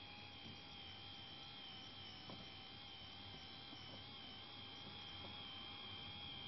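3D printing pen's small filament feed motor running with a faint, steady high whine while it pushes melted plastic filament out of the nozzle.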